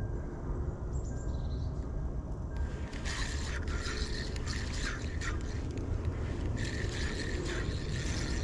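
Spinning reel being cranked to retrieve a lure, its gears whirring in spells from about three seconds in.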